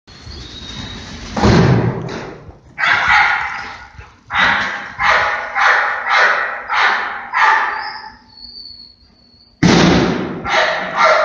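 A dog barking repeatedly, about eleven barks. Most come in a quick run a little over half a second apart, with a few more spaced out before and after. Each bark trails off in the echo of a large, empty concrete-and-block room.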